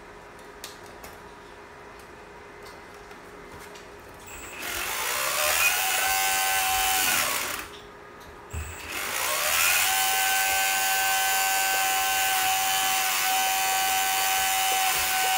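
Homemade water pump driven by a 4050 brushless motor spinning up with a rising whine about four seconds in, cutting out after about three seconds, then spinning up again a second later and running on at a steady high whine.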